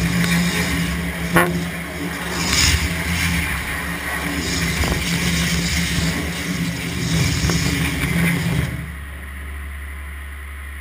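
Waterjet cutting machine cutting through 5 mm plywood: a loud hiss of the jet over a steady hum. The jet cuts off sharply about nine seconds in, leaving a quieter steady hum.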